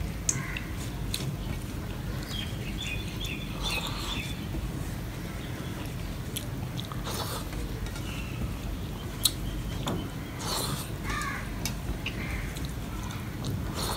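Fingers mixing rice and mung dal in a steel plate: soft wet squishing, with scattered sharp clicks of fingers against the metal. A few short chirps sound about three seconds in.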